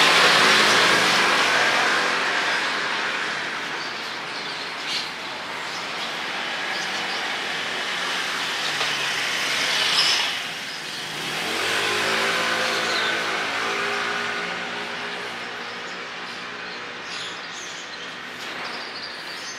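Street traffic: motor vehicles passing close by. A rush of noise is loudest at the start and fades, and an engine speeds up past about twelve seconds in.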